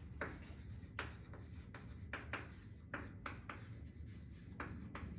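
Chalk writing on a chalkboard: a run of short, irregular scratches and taps as the chalk strokes across the board.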